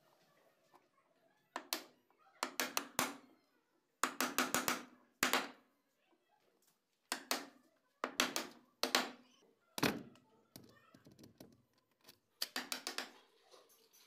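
Steel chisel worked by hand into a wooden door frame to cut the latch recess, scraping and chattering in about ten short strokes of half a second each at uneven gaps, one stroke near the ten-second mark landing with a deeper knock.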